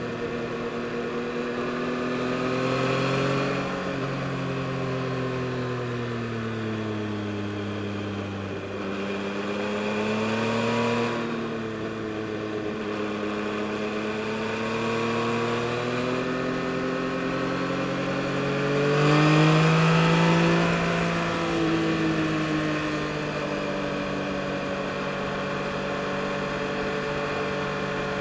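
A 2022 Yamaha MT-09 SP's 890 cc inline three-cylinder engine under way, its pitch rising and falling with the throttle. It swells under acceleration three times, loudest about twenty seconds in, between steadier cruising.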